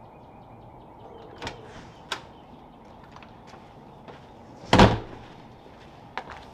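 A few light knocks and clicks, then one louder short thump nearly five seconds in, over low steady background noise.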